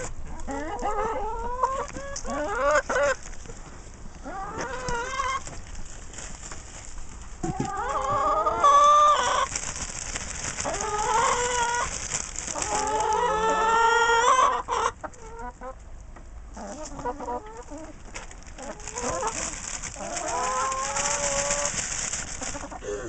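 Several hens calling and clucking in repeated bouts of rising calls.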